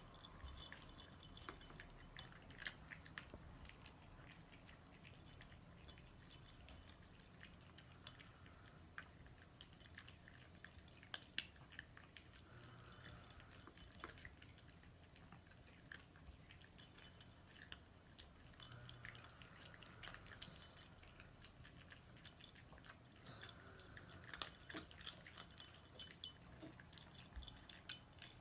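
Two cats eating dry kibble from bowls: faint, irregular crunching and chewing.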